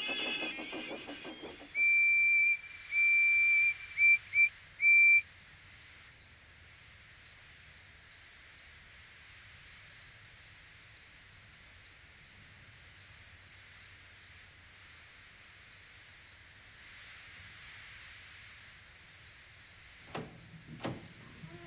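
Steam locomotive whistle blown in two longer blasts and then three short toots, followed by a faint, regular cricket chirp about twice a second. A couple of knocks near the end.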